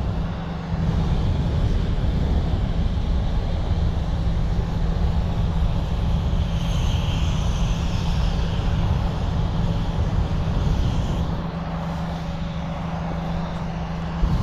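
Hot air balloon's propane burner roaring as it heats the envelope during inflation, over a steady low engine-like drone.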